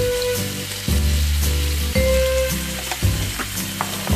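Chicken pieces sizzling and crackling in a frying pan on a gas stove, under background music whose low notes change about once a second.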